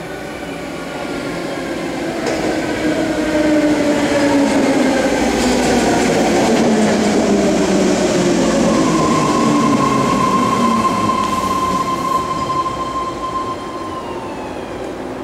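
A 9-car BART train pulls into the station and brakes to a stop: a rising rush of wheels on rail with several whines that fall in pitch as it slows. A steady high tone holds through the later seconds, and the sound eases off as the train stops.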